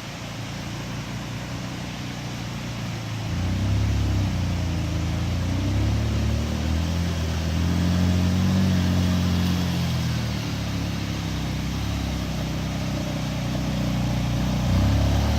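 Motor vehicle engine running under load. It grows louder and higher about three and a half seconds in, wavers, and eases off around ten seconds before picking up again near the end.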